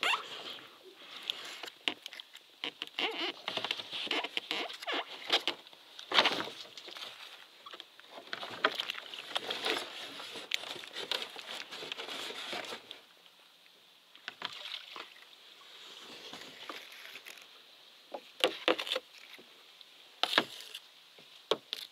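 Irregular rustling, clicks and knocks with water sloshing, coming in busy spells and easing off for a few seconds in the middle.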